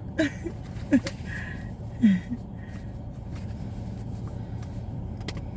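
A steady low hum, with three short murmured vocal sounds in the first two seconds.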